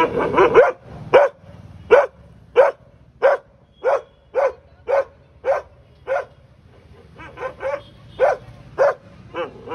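A dog barking repeatedly at a cat: sharp single barks about every two-thirds of a second, with quicker runs of barks at the start, about seven seconds in, and near the end.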